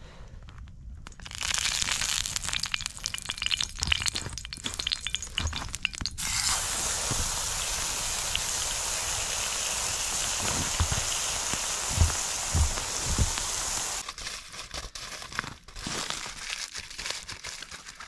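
Meat sizzling in a frying pan over a campfire, with spitting crackles. The sizzle sets in about a second in, becomes a steady hiss from about six seconds to fourteen, with a few dull thumps near the end of that stretch, then eases back to crackling.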